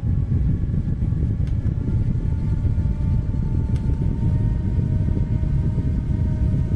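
Handheld rechargeable fan running, with a steady motor and blade whine over a loud, low rumble of air blowing across the microphone. The whine shifts slightly in pitch near the start and again about four seconds in, and there are a few faint clicks.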